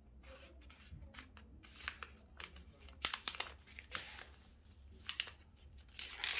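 A sheet of paper being folded and creased by hand into a paper airplane: rustling and crinkling with short taps and swishes. The loudest swish comes near the end.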